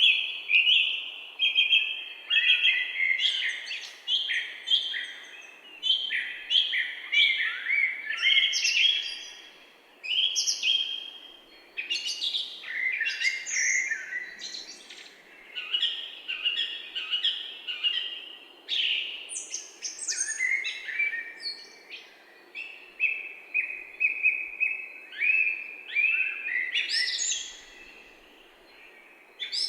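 Several small birds singing and chirping, overlapping short trills and tweets with a few brief lulls, over a faint steady background hiss.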